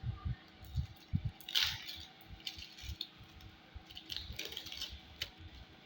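Containers and utensils being handled while cream ingredients are mixed: irregular soft bumps, with a brief rattle about one and a half seconds in and lighter clicks near the end.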